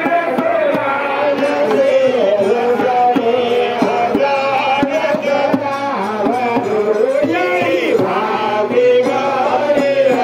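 Hindu priests chanting Sanskrit puja mantras in a sustained, melodic chant, with long held notes and gliding pitch.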